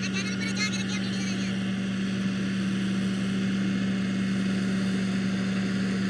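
New Holland 8060 combine harvester's engine running with a steady drone.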